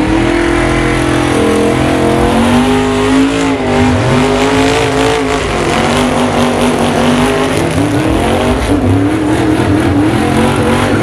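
Lifted mud truck's engine revving hard and loud, its pitch swinging up and down again and again.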